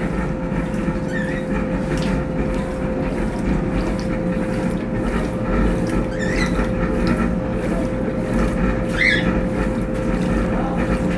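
Brastemp Tira Manchas Pro 12 kg top-loading washing machine running through its wash with a steady motor hum and low rumble.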